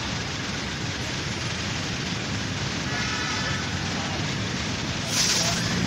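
Steady noise of heavy city street traffic, engines and tyres blended into an even din, with a short, loud hiss about five seconds in.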